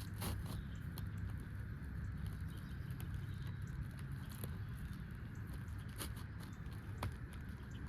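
Low steady rumble with faint scattered ticks and light scrapes, and a few sharper clicks about three, six and seven seconds in.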